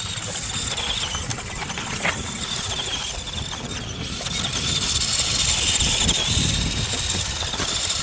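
Toy remote-control monster trucks running flat out: a steady high electric motor whine over a low rumble.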